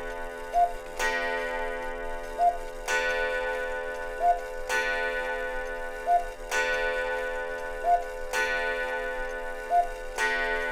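Cuckoo clock with its bird out of the door, sounding a held pipe-like tone that restarts about every two seconds, with a short tick between each start.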